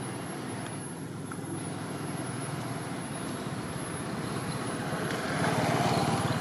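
Steady motor-vehicle engine noise that grows louder about five seconds in, as if the vehicle is drawing closer.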